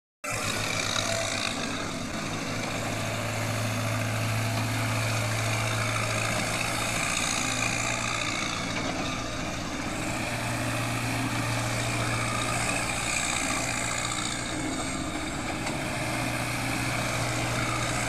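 Backhoe loader's diesel engine running steadily, its low hum growing stronger and weaker a few times as the machine works.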